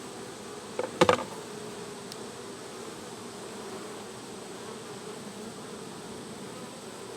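Honeybees buzzing around an opened hive, a steady hum, with one sharp click about a second in.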